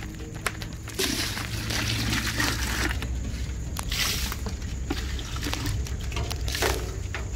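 Small live fish writhing and flapping in shallow water in a metal pot, a wet sloshing, squishing patter that starts about a second in, over a steady low hum.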